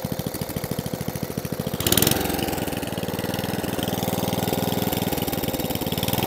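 Tecumseh petrol engine on an Atco Balmoral 14SE cylinder mower running steadily at idle, a touch short of the revs it wants. About two seconds in there is a brief hiss and the engine note changes, then it runs on steadily.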